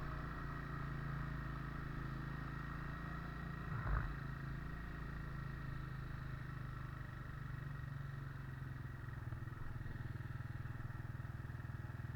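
Vehicle engine and road noise, a steady low drone while driving, with a single bump or knock about four seconds in.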